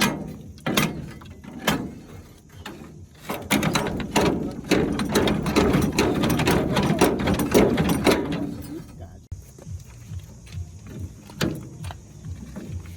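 Metal-on-metal knocks and clatter from tools working on a rusted gearbox, with a dense stretch of rapid scraping and rattling in the middle, then scattered knocks again.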